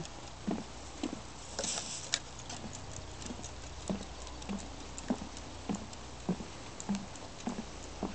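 Footsteps of a person walking at a steady pace on a wooden boardwalk, a little under two steps a second. There is a brief rustle about two seconds in.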